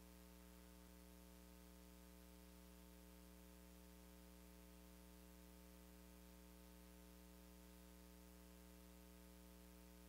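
Near silence, with only a faint steady hum.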